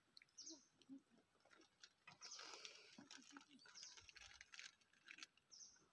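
Near silence in open forest, with a few faint, brief high-pitched bird chirps, one near the start and one near the end.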